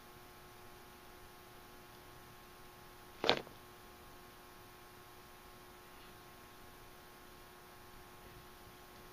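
Faint steady electrical hum of a few fixed tones, with one short sharp click or knock about three seconds in.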